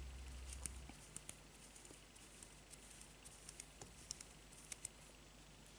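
Faint, scattered small ticks and rustles of fingers wrapping thread along a thin wire stem. A low hum stops about a second in.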